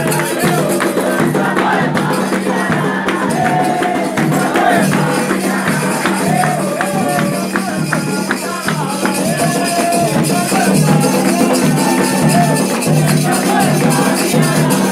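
Candomblé ceremonial music for the orixá Xangô: voices singing a wavering melody over a steady percussion beat of drums and shaken rattles.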